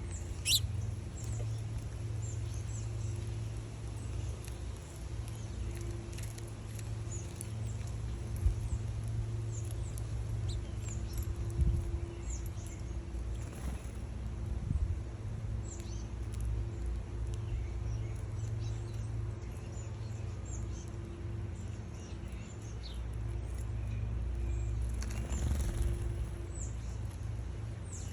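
Small birds at a feeder chirping in short, scattered calls over a steady low hum, with a couple of sharp knocks and a brief rush of noise near the end.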